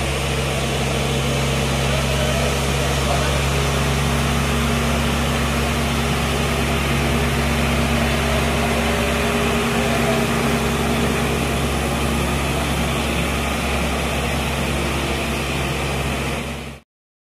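Case 770EX Magnum backhoe loader's FPT diesel engine running steadily under load as it pushes a stalled truck through floodwater. The sound cuts off abruptly near the end.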